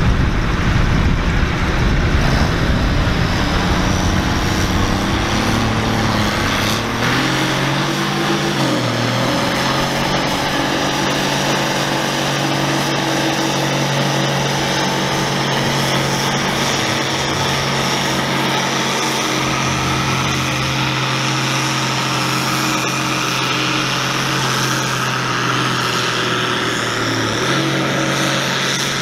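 Allis-Chalmers D-19 Diesel tractor's turbocharged six-cylinder diesel engine running hard under load while pulling a weight-transfer sled. Its pitch climbs over the first eight or nine seconds, then holds steady at high revs.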